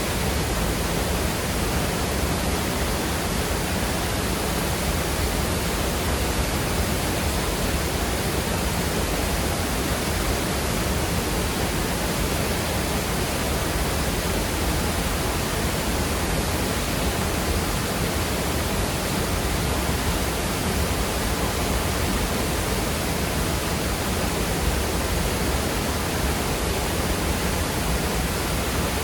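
Waterfall pouring into a fast-moving creek, with water rushing over rocks: a steady, unbroken rush.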